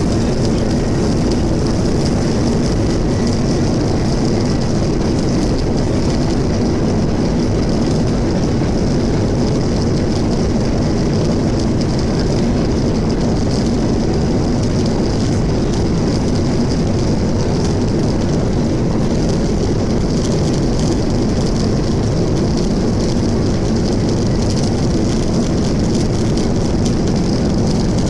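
Jet engines and airflow of a Southwest Boeing 737 heard from inside the cabin while the plane taxis: a loud, steady rumble with a hiss on top that holds level without spooling up.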